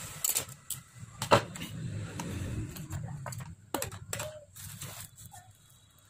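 Handling noise from a laptop and tools being moved on a desk: a series of sharp clicks and knocks, the loudest about a second in, over a low rumble.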